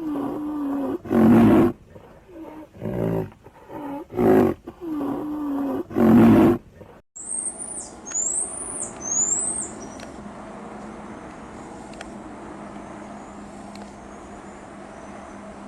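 A large animal giving about five loud, low calls in a row, then, after a cut, a bird's three high chirps, each falling in pitch, followed by fainter chirps over a steady outdoor hiss.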